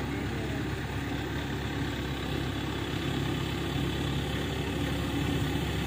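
Diesel engine of an ACE 12XW hydraulic crane running steadily while the crane holds and swings a timber log on its hook.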